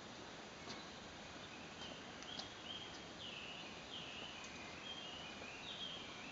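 A series of short, high chirps, about two a second and several dropping slightly in pitch, starting about two seconds in and going on, over a faint steady background hum.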